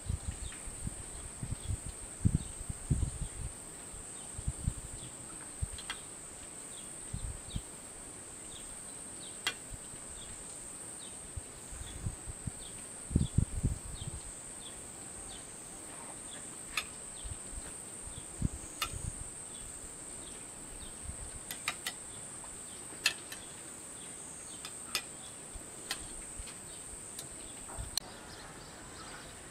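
Outdoor summer ambience: a steady high insect drone with a string of short high chirps. Metal serving tongs give sharp clicks against the plate now and then, and a few low thumps are the loudest sounds, around two seconds in and again near the middle.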